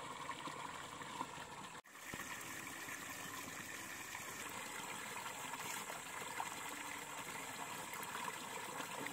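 Water running steadily, with a brief break just under two seconds in.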